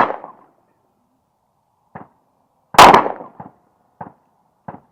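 Sig P365 9mm pistol firing: the tail of one shot at the very start and a second sharp shot about three seconds in. Between and after them come a few much fainter short knocks.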